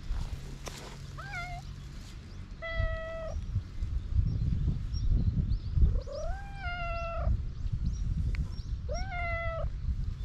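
A hungry stray cat meowing four times while being stroked: a short meow about a second in, a flat one about three seconds in, a longer one that rises and then holds a little after six seconds, and a last one near the end.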